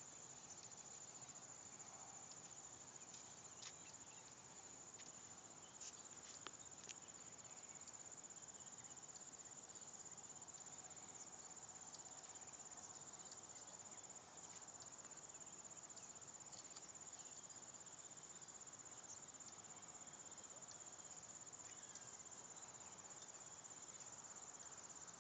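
Faint, steady high-pitched trilling of crickets and other insects in the grass, with a few soft clicks between about three and seven seconds in.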